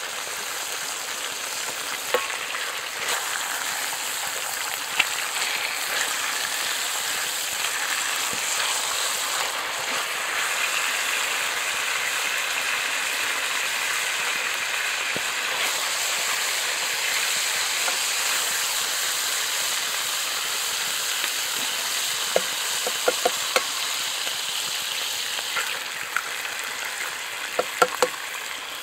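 Bacon frying in oil in a cast-iron skillet, a steady sizzle with fine crackling, and a few sharp taps near the end.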